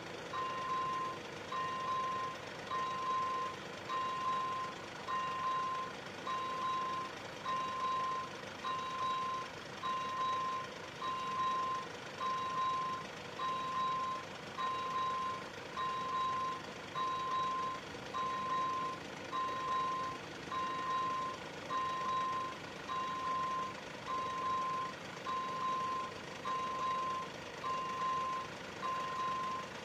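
Railway level crossing's electronic warning bell sounding a repeated high beep, about one a second, while the crossing's red lights flash: the crossing is active, a train is approaching.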